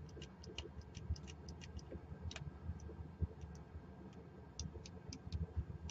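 Master Lock Magnum M175 combination padlock's number wheels clicking faintly and irregularly as they are wiggled one at a time, with tension pulled on the shackle to decode the combination.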